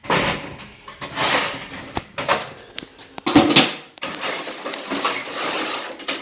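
Metal transmission parts clinking, clattering and scraping as they are handled and pulled apart during a 700R4 automatic transmission teardown, in several bursts with sharp clicks.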